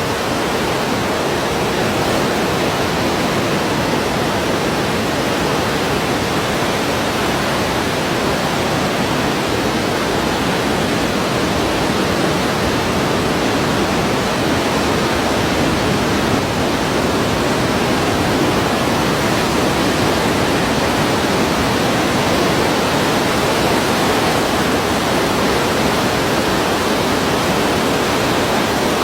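Sea waves as a steady, even wash of noise, with no distinct individual breakers rising and falling.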